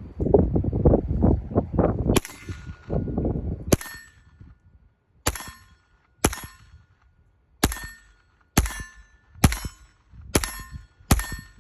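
AR-style rifle firing a steady string of single shots, about one a second. Each shot is a sharp crack followed by the ringing ping of a struck steel target, nine in all and none missed. A loud rumbling noise fills the first few seconds.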